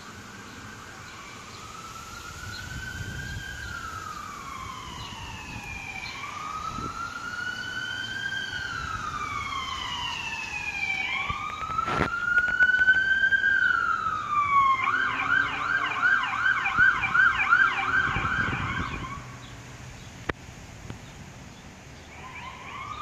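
Emergency vehicle siren in a slow rising and falling wail that grows louder. About two-thirds of the way through it switches to a fast yelp for a few seconds, then cuts off, and the wail starts again near the end.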